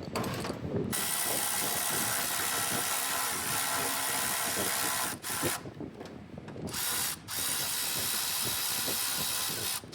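Ratchet wrench spinning the motorcycle's 14mm front brake caliper bolts in, in three runs with short pauses between them.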